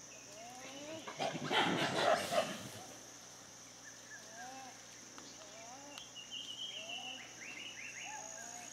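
Dusk bush ambience: a steady high insect drone and repeated short rising-and-falling calls. About a second in there is a loud, harsh, noisy burst lasting under two seconds, and a few quick high chirps come near the end.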